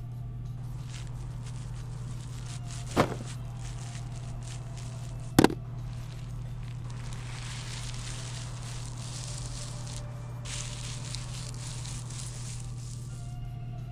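Clear plastic packaging bag crinkling and rustling as a juicer motor base is pulled out of it, with two sharp knocks about three and five and a half seconds in as hard plastic juicer parts are handled on the table. A steady low hum runs underneath.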